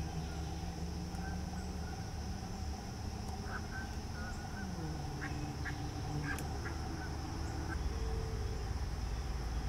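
Ducks and geese calling, with a few short, high small-bird chirps in the middle and a low rumble underneath that grows louder near the end.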